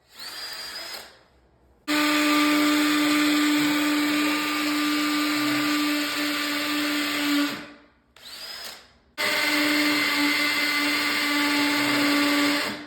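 Power drill drilling through a toilet flange into the concrete and tile beneath, running steadily in two long runs, the second starting about nine seconds in, with short fainter sounds between.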